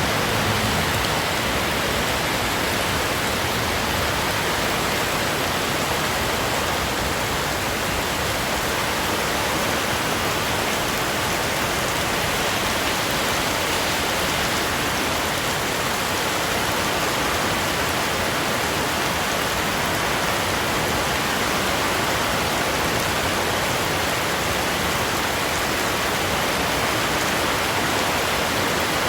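Heavy rain pouring down: a steady, even hiss of rainfall that holds at the same level throughout.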